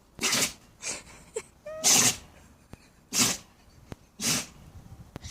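Dog sneezing over and over: five short sharp sneezes about a second apart, one of them weaker, with a brief rising squeak just before the loudest.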